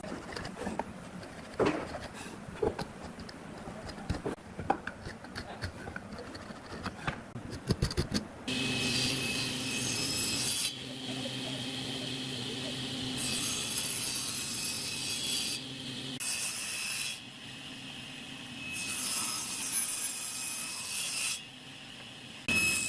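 Wooden boards knocked and handled on a workbench, several sharp clacks. Then, after about eight seconds, a table saw starts running and rips wooden boards, its pitch going higher and harsher each time the blade bites, over several cuts.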